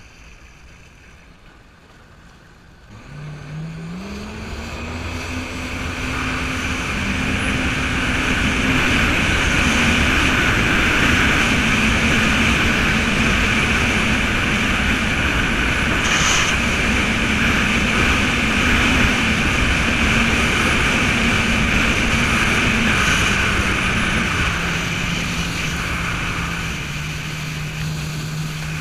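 Jet ski engine speeding up about three seconds in, its pitch rising, then running fast with a steady rush of water spray and wind. Late on the pitch drops a little as it eases off.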